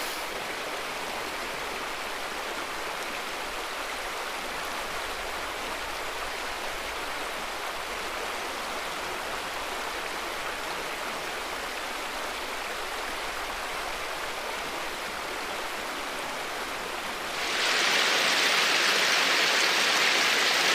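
River water running with a steady rush. About seventeen seconds in it changes abruptly to a louder, hissier rush of water.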